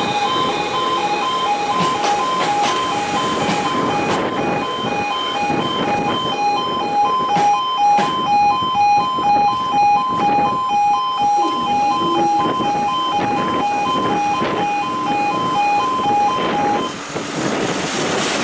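Railway level crossing warning alarm sounding: a pulsing electronic two-tone beep repeating a few times a second, which stops about a second and a half before the end, over a constant background noise.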